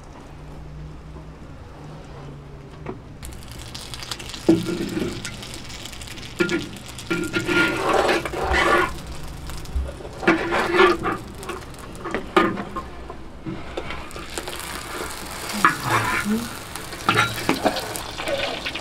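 Flatbread frying in a large iron pan over a fire, sizzling steadily from a few seconds in. A spatula scrapes and knocks against the pan several times as the bread is turned.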